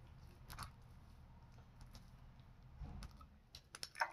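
Homemade glue slime being squeezed and kneaded in the hands: faint sticky squelches and small wet clicks, with a quick run of louder clicks near the end.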